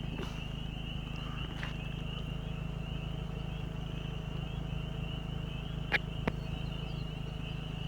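A steady, high-pitched trilling chorus of small wild animals, over a low steady hum, with two faint clicks about six seconds in.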